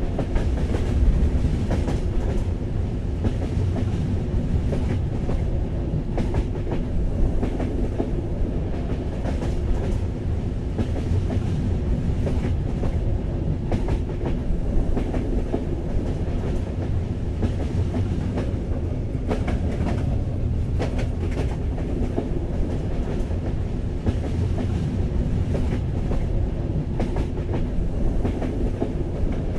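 Passenger train running along the track, heard from inside the carriage: a steady low rumble of wheels and car body, with scattered clicks and knocks from the rails.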